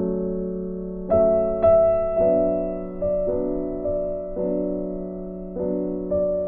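Background piano music: slow single notes that ring and fade over a held low chord.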